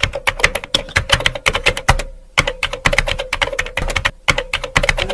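A rapid run of sharp clicks, several a second, over a faint steady tone. It starts and stops abruptly, with short breaks about two seconds and about four seconds in.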